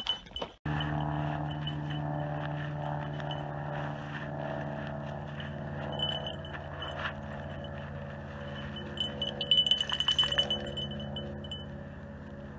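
Chime-like tones ringing and held at several steady pitches over a low drone, starting abruptly under a second in; brighter shimmering strikes cluster near the end.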